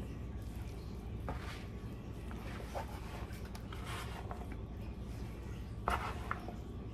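A spoon stirring pasta salad in a bowl: soft, scattered scraping and squishing strokes, with a sharper click about six seconds in.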